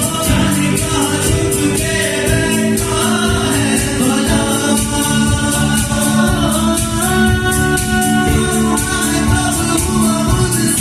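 Live band music: drums keeping a steady beat under sustained melody lines, with singing.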